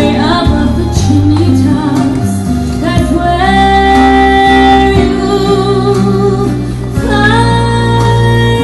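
A song: a singing voice holding long notes over instrumental accompaniment.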